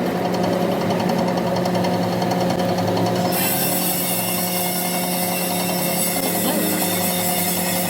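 Metal lathe running steadily with a hum and a fast, even rattle; a higher hiss joins about three seconds in.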